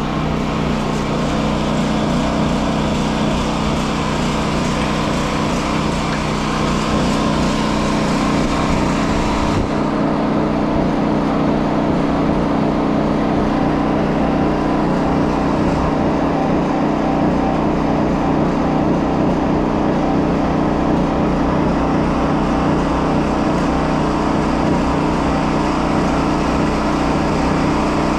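Portable gasoline generator engine running at a steady, even speed.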